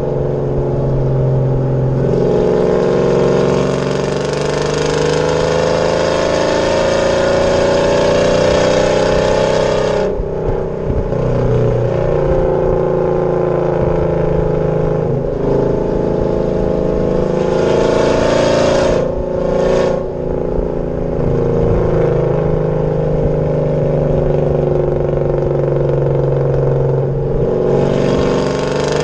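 Exhaust of a 2014 Chevrolet Silverado's 5.3-litre V8 fitted with Stainless Works long-tube headers, an off-road Y-pipe and a Corsa Sport cat-back, heard from outside the truck while driving. The note climbs in pitch as the truck accelerates and drops at each gear change, about three times over.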